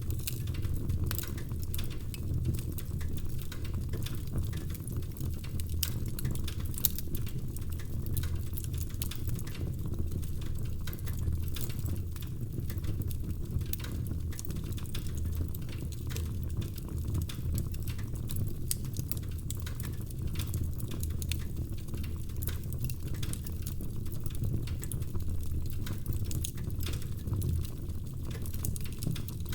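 Wood fire crackling in a fireplace: frequent small sharp pops and snaps over a steady low rumble of burning logs.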